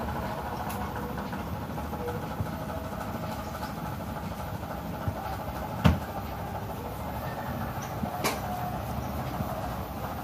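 A steady low rumble, with a sharp knock about six seconds in and a fainter click about two seconds later.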